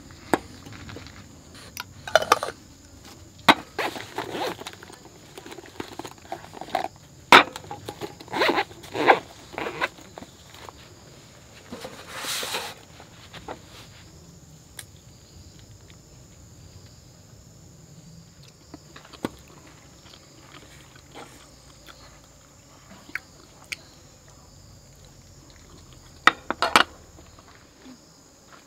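Scattered small clicks, knocks and rustles of handling, with a louder rustle about twelve seconds in; sparser after that, with a few more clicks near the end.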